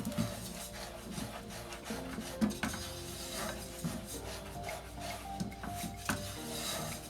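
A utensil scraping and stirring sugar in a pan as the sugar melts for caramel, a run of irregular rasping strokes.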